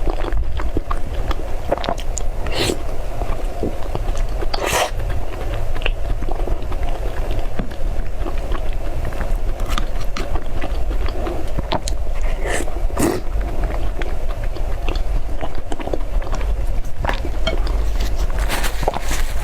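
Close-miked chewing of soft, sticky white mochi: irregular wet mouth clicks and smacks, a few louder than the rest, over a steady low hum.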